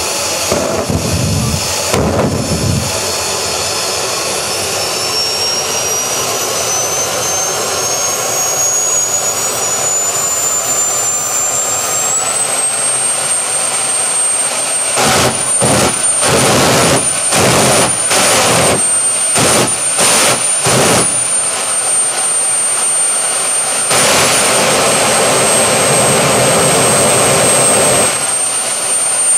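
Homemade turbocharger jet engine running: its high whine climbs steadily in pitch for about ten seconds as it spools up, then holds high over a rushing combustion roar. Around the middle the roar surges unevenly in quick bursts, and near the end it runs louder and steadier.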